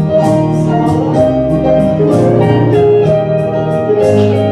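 Live country gospel band music: keyboard and guitar playing chords over a steady beat, the instrumental lead-in to a song.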